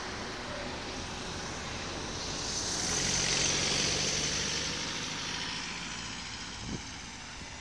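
A vehicle passing on the street: tyre and engine hiss swelling to its loudest a little before the middle, then fading away.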